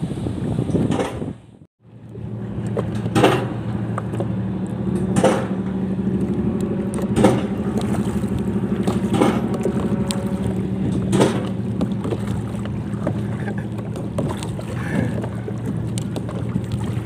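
Paddle strokes from a small homemade plywood boat being paddled, a sharp splash about every two seconds, over a steady low hum.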